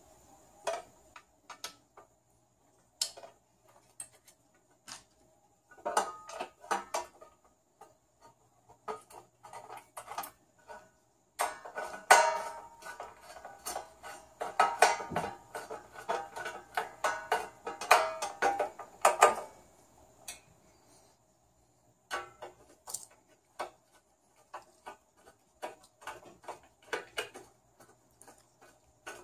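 Hand handling of a metal espresso-machine panel, screws and a screwdriver: scattered clicks and knocks of metal on metal, turning into a dense clatter in the middle, then back to scattered clicks near the end.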